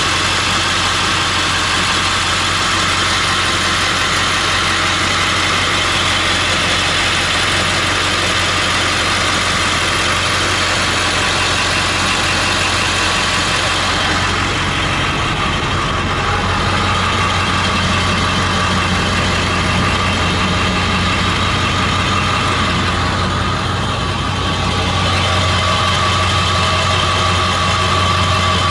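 Ford 7.3L Power Stroke turbodiesel V8 idling steadily.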